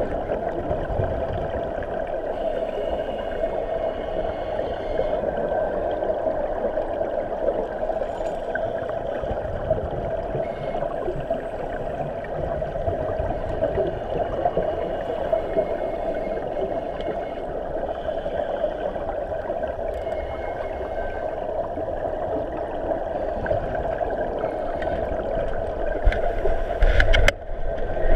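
Steady, muffled underwater rush of spring water and bubbles, heard through a dive camera's waterproof housing. About a second before the end it turns louder, with a short spell of sharp crackling.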